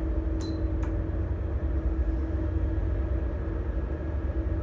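Holeless hydraulic elevator's pump motor running with a steady hum over a low rumble as the car travels. Two light clicks come in the first second as buttons are pressed.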